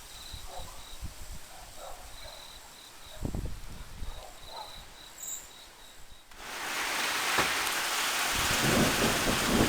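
Heavy rain that starts abruptly about six seconds in and keeps up a steady hiss, with low rumbling under it near the end. Before the rain there are a few short bird calls and a repeating high insect chirp.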